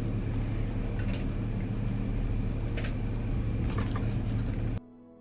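Steady low hum of room background noise, with a few faint brief clicks or rustles, cutting off suddenly near the end, where faint soft music begins.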